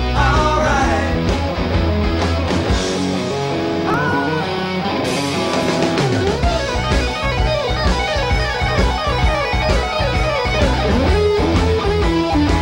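A rock song played from a record, led by strummed electric guitar with bent, sliding notes.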